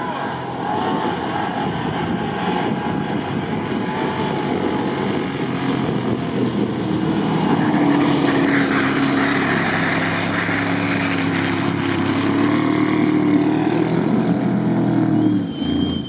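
Mercedes-Benz G-Class off-roader's engine working hard under heavy throttle as it ploughs through deep snow; the engine note climbs and holds higher from about halfway through.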